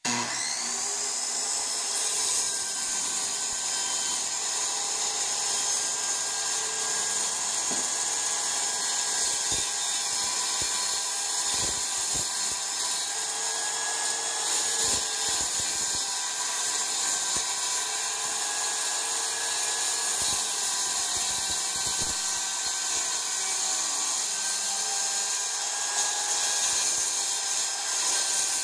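Corded circular saw starting up with a quick rising whine, then running steadily as its blade cuts through plywood subfloor.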